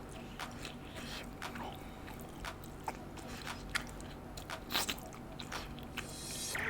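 Scattered light clicks and soft food sounds, typical of eating or handling food with utensils. There is a sharper click nearly five seconds in and a short hiss near the end.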